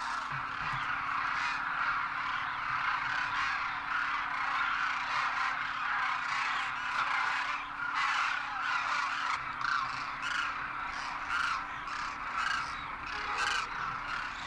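A large flock of demoiselle cranes calling, many calls overlapping into a continuous chorus.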